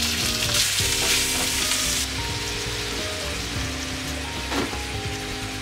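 Cartilage pieces dropped into hot oil and garlic in a frying pan, sizzling hard for the first two seconds as they hit the pan, then settling into a steadier sizzle.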